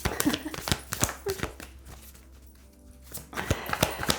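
Tarot cards being shuffled and handled, a run of quick papery snaps and taps. The taps die down briefly about two seconds in, then pick up again.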